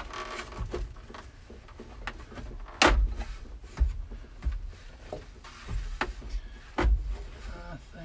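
Scattered clunks and knocks as the gauge cluster is worked loose from a 1972 Chevrolet Cheyenne's dash by hand, with a sharp knock about three seconds in and another about a second before the end.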